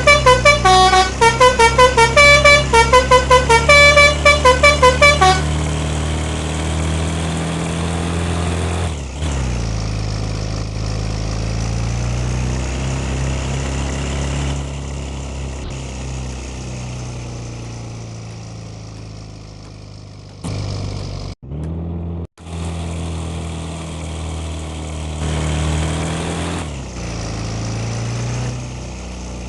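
A bus's multi-tone 'telolet' horn plays a quick melody of short notes for about the first five seconds. After that the bus engine runs on, its pitch rising and falling as it drives, with the sound dropping out briefly twice a little past the middle.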